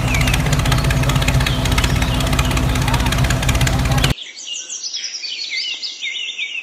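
A tractor-type engine running steadily with an even pulse, with birds chirping over it; the engine sound cuts off abruptly about four seconds in, leaving only the birdsong.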